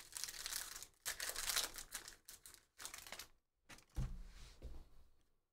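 Foil wrapper of a Panini Prizm football card pack being torn open and crinkled, in several short crackling bursts. About four seconds in comes a dull thump with more crinkling as the cards are pulled out.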